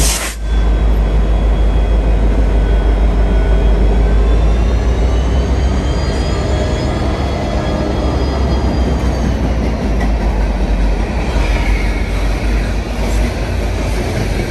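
Long train of loaded ballast hopper cars passing at speed on the adjacent track: a steady, heavy rumble of wheels on rail, with faint high wheel-squeal tones that slowly rise and fall.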